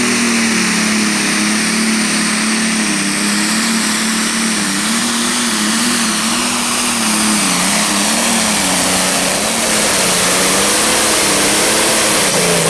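John Deere Pro Stock pulling tractor's turbocharged diesel engine running flat out under load as it drags the sled. The engine pitch wavers up and down over a steady high whine.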